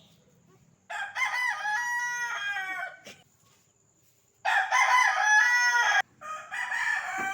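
Roosters crowing: three long calls, each one and a half to two seconds, the second one cut off abruptly.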